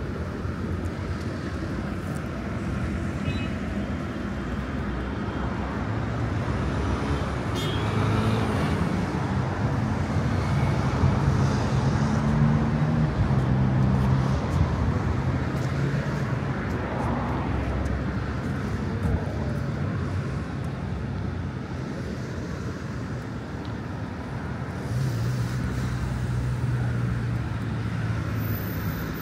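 Street traffic: steady road noise with motor vehicle engines passing close by, one swelling through the middle and another near the end.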